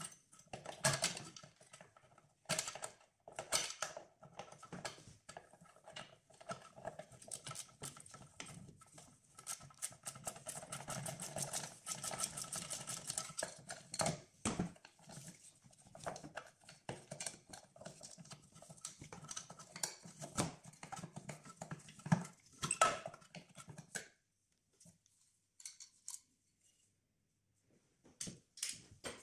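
Hand tools and engine parts clicking, tapping and rattling during hands-on work at the EGR valve and cooler of a diesel engine, with a run of rapid clicks about halfway through. It goes almost silent for a few seconds near the end.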